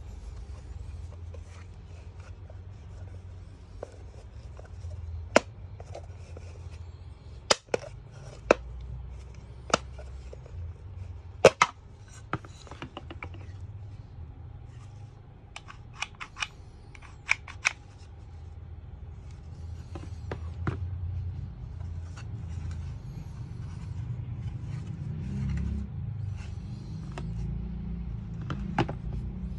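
Hard plastic parts of a Carmate rear-view mirror and its cover clicking and tapping as they are handled and fitted together, with scattered sharp clicks, some in quick pairs and runs. A steady low hum lies underneath.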